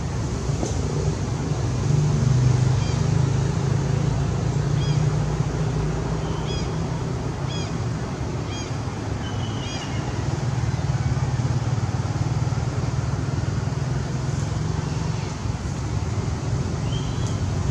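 Steady low engine drone, swelling a little about two seconds in and again around ten seconds, with a run of short high chirps about once a second through the middle and one more near the end.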